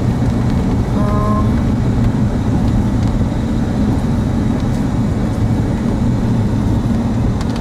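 Car driving on a wet road, heard from inside the cabin: a steady low rumble of engine and tyre noise. A brief pitched sound comes about a second in.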